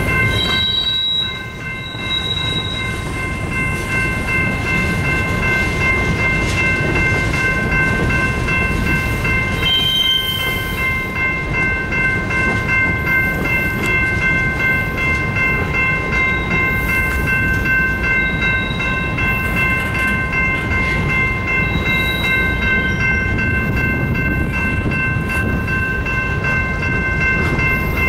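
Freight cars rolling past on the track: a steady rumble of wheels on rail, with several steady high-pitched tones held over it.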